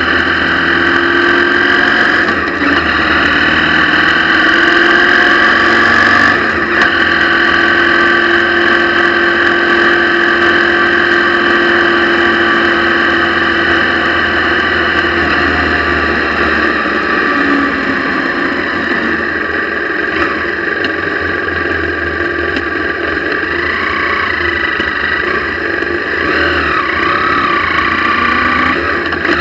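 Motorcycle engine running at a steady road speed, mixed with wind rushing over the camera microphone. Its pitch sags partway through and bends up and down a few times near the end.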